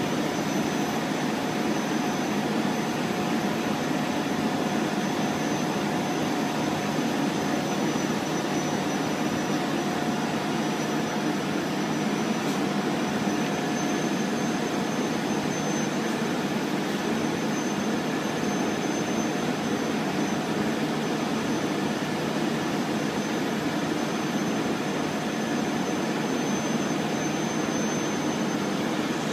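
A machine running steadily: an even drone with a thin, steady whine held over it, unchanging throughout.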